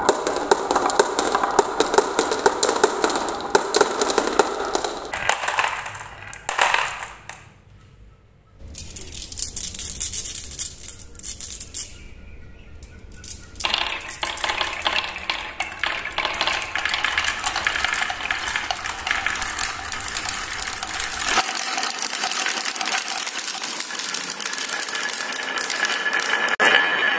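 Glass marbles clicking and clattering down wooden marble-run tracks. They run along a wavy wooden track and drop into a plastic toy dump truck, then bounce through a board of wooden pegs after a short quieter gap. Near the end they knock against metal bar deflectors, which give a thin ringing tone.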